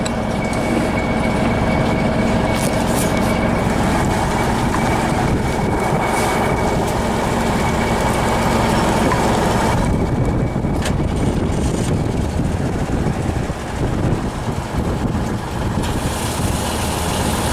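Engine running steadily while diesel is pumped through a hose and nozzle into a T-150K tractor's fuel tank from a fuel truck. The running sound changes about ten seconds in.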